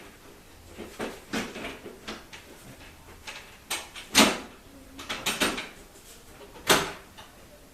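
Wooden cabinet panels knocking and clattering as they are handled and fitted onto the assembly brackets, with two louder knocks about four and six and a half seconds in.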